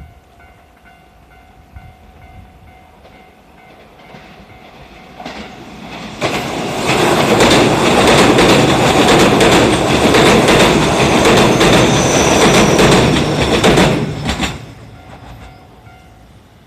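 A Hiroden tram passes close by for about eight seconds from about six seconds in, its wheels clacking over the rail joints. A level-crossing warning bell rings steadily before and after it.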